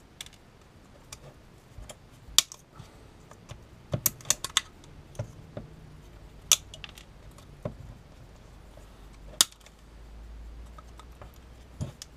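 Pliers nibbling at the metal housing of an oil pressure sensor: irregular sharp clicks and snaps of metal on metal, a few spaced out, with a quick cluster about four seconds in.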